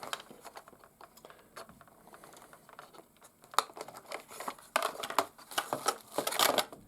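Irregular clicks, taps and crinkling of hard plastic being handled, the busiest and loudest handling near the end.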